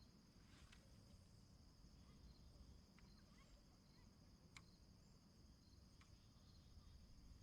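Near silence: a faint, steady high-pitched insect trill with a few soft, scattered clicks.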